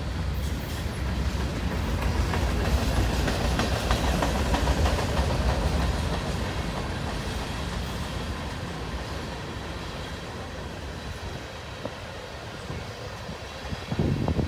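Freight train of tank cars rolling past at close range: a steady low rumble of steel wheels on rail with clickety-clack over the joints, swelling a couple of seconds in and then easing off. A short burst of noise comes near the end.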